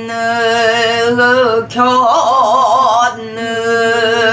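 A woman singing pansori in a strong, husky voice: three long held notes, the middle one with a wide vibrato, broken by short breaths. She keeps time on a buk barrel drum, one stick stroke sounding about halfway through.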